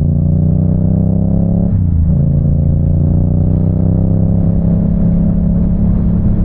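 Yamaha R7's 689 cc parallel-twin engine pulling under acceleration, its pitch rising. There is a quick upshift about two seconds in, then the engine climbs slowly again in the next gear.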